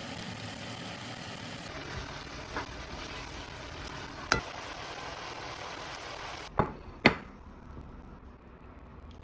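Food sizzling in a frying pan, with a few sharp clicks and knocks of a utensil against the pan. The sizzling stops suddenly about six and a half seconds in, just before two louder knocks.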